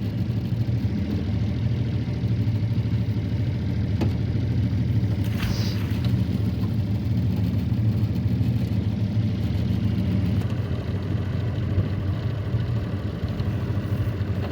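Tohatsu outboard motor running steadily, holding the boat against a strong river current. A brief knock about four seconds in and a short swish a second later.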